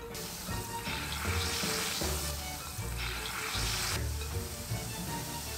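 Fizzy dinosaur egg, an effervescent bath-bomb-like tablet, fizzing in a bowl of water as it dissolves: a steady hiss that swells and eases, over soft background music.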